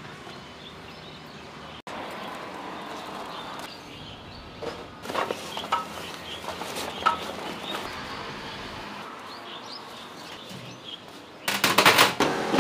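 Outdoor stall-setup ambience: faint bird chirps at first, then scattered knocks and clatter of metal stall equipment being handled, and a loud rush of noise for about a second near the end.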